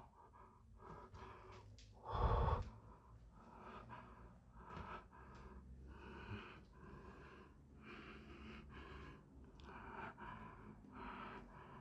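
A person breathing close to the microphone, short breaths about once a second, with one louder breath or rustle about two seconds in.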